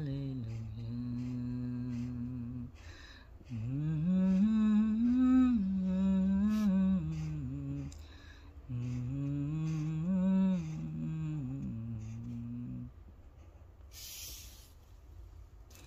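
A woman humming a slow melody without words, in three long held phrases with gliding pitch. A brief scratchy hiss follows near the end.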